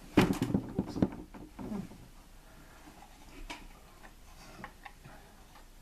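A cardstock pepakura helmet rustling and crackling as it is handled and shifted on the head. A dense cluster of sharp paper crackles and knocks comes in the first second or so, a few lighter ones follow, and a single click comes a little past the middle.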